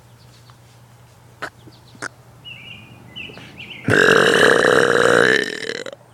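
A person's long, loud burp, starting about four seconds in and lasting about two seconds before tapering off. Before it, two faint clicks.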